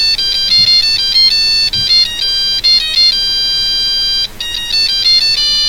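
STM32F411 microcontroller playing an RTTTL ringtone: a fast one-note-at-a-time melody of electronic beeping tones, quick short notes mixed with longer held ones, with a brief break about four seconds in.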